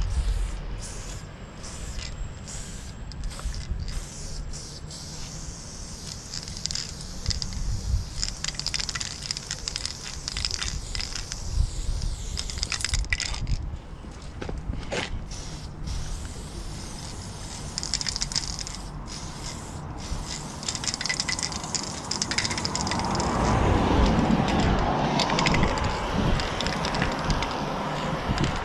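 Aerosol spray paint can hissing in stretches of a few seconds with short pauses between, over a low traffic rumble. A louder rushing noise swells in the last few seconds.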